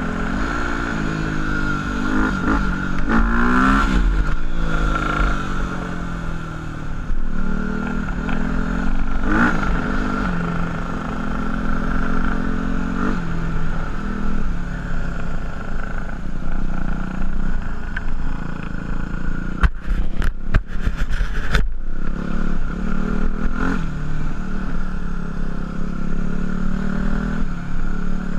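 Single-cylinder dual-sport motorcycle engine running while riding, its pitch rising and falling repeatedly with throttle and gear changes. A short run of sharp clattering knocks comes a little past two-thirds of the way through.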